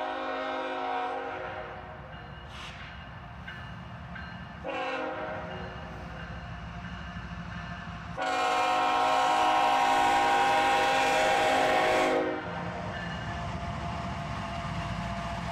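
Diesel locomotive air horn sounding three blasts: one ending about a second in, a shorter one around five seconds in, then a long, loudest blast from about eight to twelve seconds, the pattern of a grade-crossing signal. The low rumble of the approaching train runs underneath.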